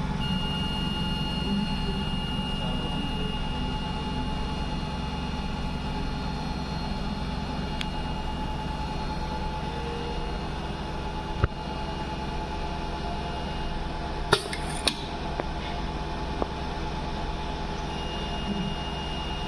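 ZM-R720A LED repair machine running a mounting cycle: a steady mechanical hum with a thin, high steady whine that drops out about 14 seconds in and comes back near the end. A few sharp clicks sound partway through.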